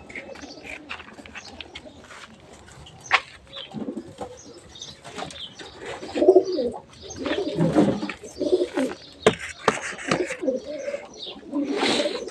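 Domestic pigeons cooing in a loft, the cooing loudest in the second half, with a sharp knock about three seconds in.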